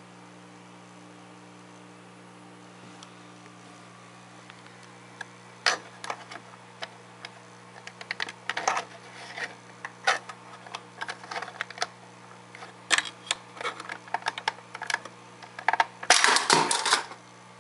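Smith Corona Coronet 12 electric typewriter being typed on: its hammers strike irregularly from about six seconds in, with a dense run of strikes near the end. A steady hum lies beneath.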